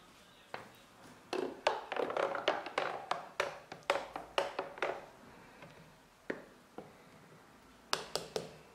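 Light taps, clicks and knocks of objects being handled on a kitchen counter: a dense irregular run of them for a few seconds, two single knocks after a pause, and a short quick cluster near the end.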